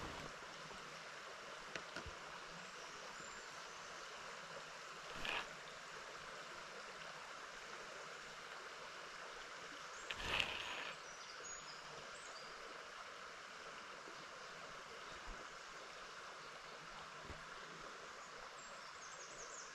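River water running steadily and faintly, with two brief louder noises about five and ten seconds in.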